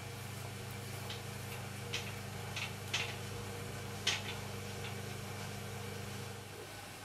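Hands working a large clay pot on a potter's wheel head: a few short scrapes and taps on the clay, the loudest about three and four seconds in, over a steady low hum that stops near the end.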